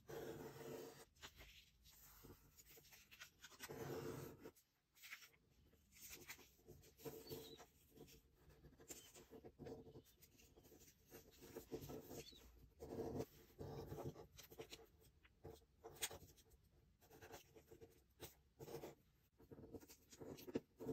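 Quiet rustling and crinkling of a square sheet of origami paper being folded by hand, with short crisp swishes and small taps as fingers press and run along the folds to crease them.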